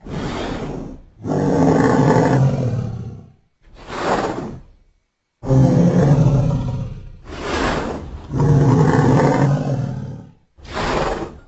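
Sound-effect calls for a Kritosaurus, a duck-billed dinosaur: a string of about seven deep, pitched roaring calls, longer ones of around two seconds alternating with shorter ones of about a second, each separated by a brief gap.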